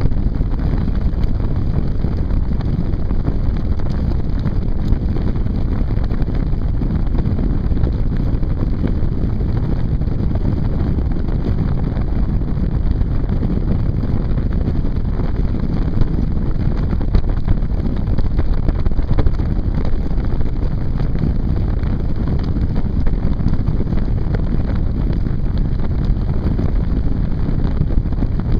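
Strong wind buffeting the microphone of a camera mounted on a land yacht under sail: a steady, loud, low rumble of noise.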